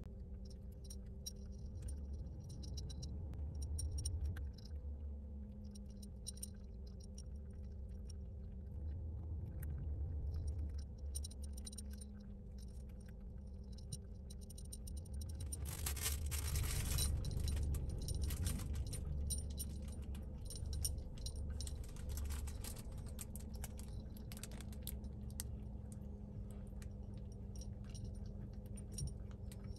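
A cat eating from a raised ceramic bowl: many small clicks and clinks of food against the bowl and light crunching, over a steady low rumble, with a brief rushing hiss about halfway through.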